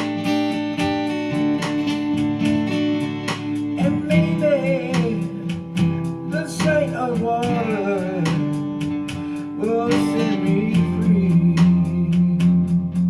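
Music: acoustic guitar strummed in a steady rhythm, with a wavering melody line laid over it from about four to ten seconds in.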